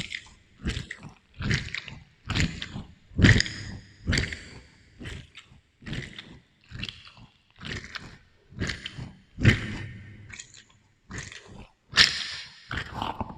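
Close-up wet chewing of juicy fruit, strawberry and watermelon, in a steady rhythm of a little over one chew a second, with an added echo effect.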